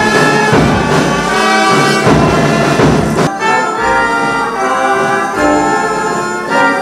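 Brass band playing an anthem in held notes, with trumpets and trombones carrying the tune.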